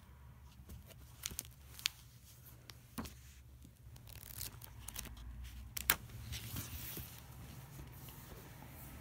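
Journals being handled and flipped through by hand: covers and pages rustling, with a few sharp clicks and taps, over a low steady hum.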